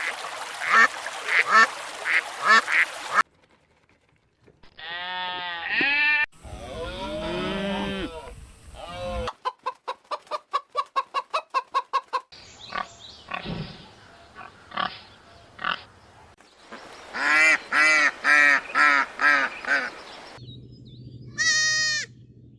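Farm animal calls in a string of short clips with abrupt cuts between them, each clip a run of repeated calls; honking fowl calls are among them.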